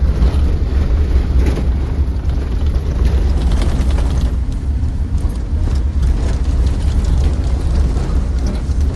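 Steady low rumble of a bus on the road, heard from inside.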